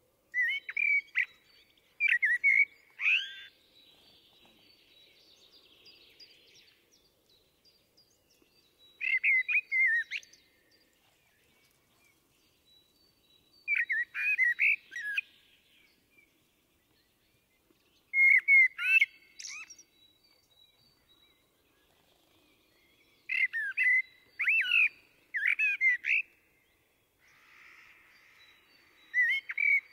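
Common blackbird singing: short phrases of song come every few seconds, with quiet pauses between them.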